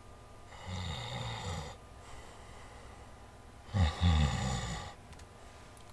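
Snoring for a sleeping crocodile: two long snores about three seconds apart, the second louder.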